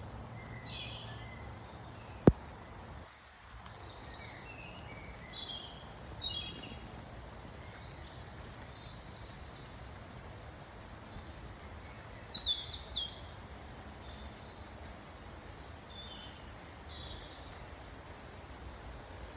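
Woodland birds chirping and singing, several calls overlapping, over a steady hiss of rain. A single sharp click about two seconds in, and a burst of louder calls a little past the middle.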